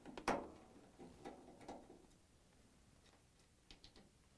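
Faint clicks and ticks of a Phillips screwdriver backing out the screws that hold a washer's dispenser housing: a sharp click just after the start, a couple more in the first two seconds, then a short run of ticks near the end.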